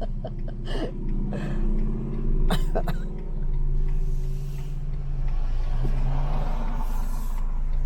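Motor vehicle engine running with a low, steady hum that drops in pitch about three seconds in, and a short hiss about six seconds in.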